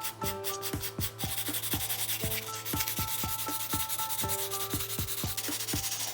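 Sanding on plastic: a steady scratchy rubbing that starts about a second in, over background music with a steady beat.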